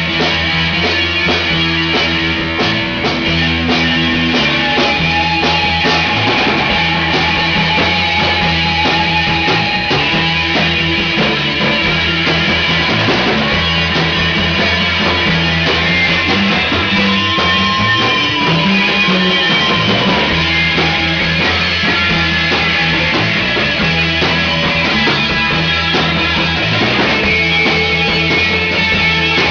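Live rock band playing an instrumental passage: electric guitars, bass guitar, drum kit and keyboard, loud and steady, with a held lead note bending in pitch about halfway through.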